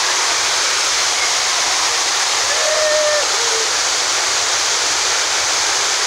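Waterfall pouring onto rocks and into a pool, a loud, steady rush of water.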